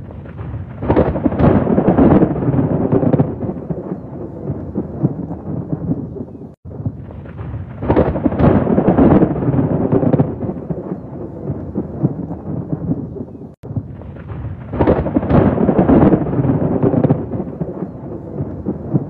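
Thunderstorm: three peals of rolling thunder, about seven seconds apart, each swelling with crackles and then rumbling away, over steady heavy rain. The sound cuts out for an instant between peals.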